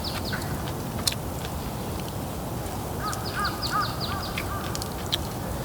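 A bird calling a quick run of about half a dozen short, repeated notes about three seconds in, over a steady background hiss with a few sharp clicks.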